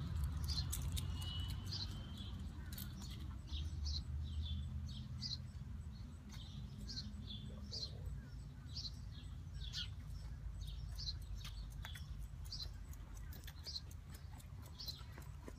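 Small birds chirping: short, high chirps repeating roughly twice a second over a low, steady rumble.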